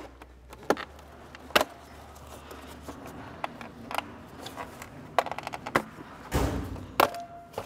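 Sharp clicks and knocks of an engine beauty cover being worked loose from its retaining tabs: a few single pops, a quick run of small clicks around five seconds in, and a heavier knock about six and a half seconds in.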